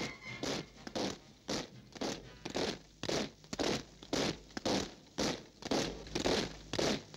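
A rhythmic rasping sound effect on the soundtrack: even noise strokes at about two a second, steady in level throughout.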